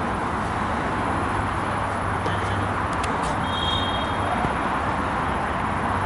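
Steady outdoor background noise with a low hum, and a brief faint high-pitched tone about halfway through.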